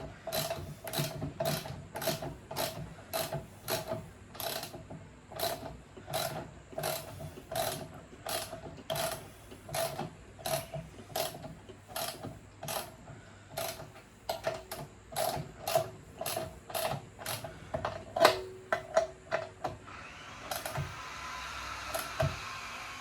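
Socket ratchet clicking in steady strokes, about two clicks a second, tightening a bolt held with a spanner on the other side. The strokes quicken toward the end and stop about three seconds before the end, leaving a steady hiss.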